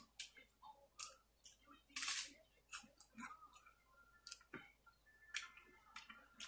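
Close-up chewing of a mouthful of red apple: irregular crunches and wet mouth clicks, the loudest crunch about two seconds in.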